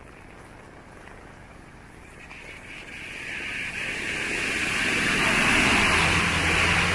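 A bus passing close by on the rain-soaked road: tyre hiss on the wet surface swells over a few seconds to its loudest near the end, with the engine's low hum under it.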